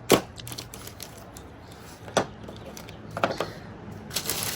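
Machined metal pedal pads being handled, with three sharp clacks just after the start, about two seconds in and about three seconds in, plus a few lighter ticks.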